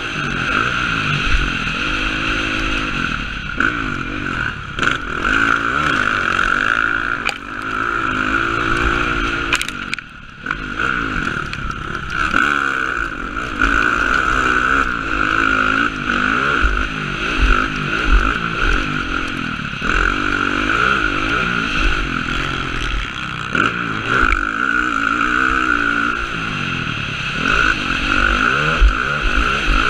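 Dirt bike engine revving up and falling back over and over as the rider accelerates and shifts around a motocross track, heard from a helmet camera with a steady rush of wind. The throttle closes briefly about ten seconds in, and low thumps come through from bumps and landings.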